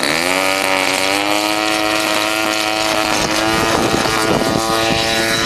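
Propeller engine of a Bird Dog plane revving up, its pitch rising over about the first second, then holding steady at high power.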